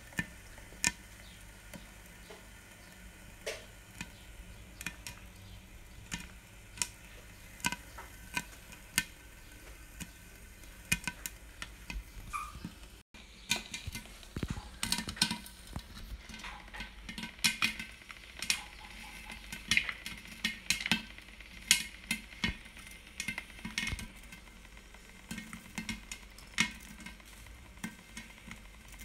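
Popcorn kernels popping in a stirring popcorn popper with a clear lid: scattered sharp pops that come faster after about halfway, over a faint sizzle and a steady low hum.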